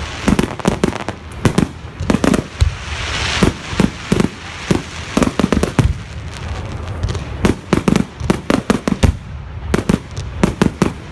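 Fireworks display: rapid volleys of sharp bangs, several a second in clusters, with a brief hiss about three seconds in.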